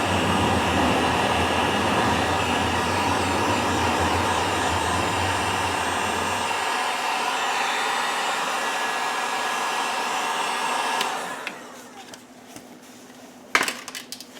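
Heat gun running steadily with a loud blowing rush while shrinking heat-shrink butt connectors on spliced door-harness wires until their sealant flows out, then switched off about 11 seconds in. A sharp click follows near the end.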